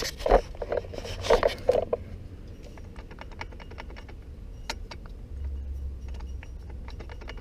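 Metal tools and parts clicking and clinking as they are handled, with a cluster of sharp knocks in the first two seconds, then scattered light ticks.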